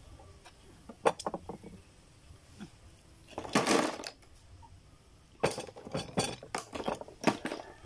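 Oyster shells clicking and clattering as they are handled with a knife on a wooden board. A few sharp knocks come early on, a longer rattling clatter about three and a half seconds in, and a quick run of clinks near the end.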